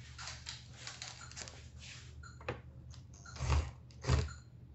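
Tools and a cordless drill-driver being handled on a cloth-covered bench: a string of light clicks and rattles, then two dull thumps about three and a half and four seconds in. The drill's motor is not run.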